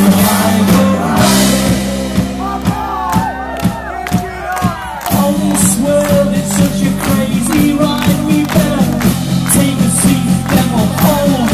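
Live rock band playing on a festival PA: electric guitars, bass guitar and drum kit. The low end thins out for a few seconds, then the full band comes back in about five seconds in.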